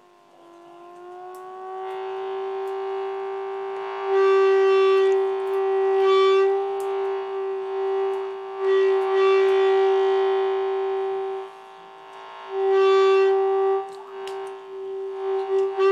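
A single sustained pitched tone, rich in overtones, held at one pitch after a brief dip at the start, swelling louder and softer several times.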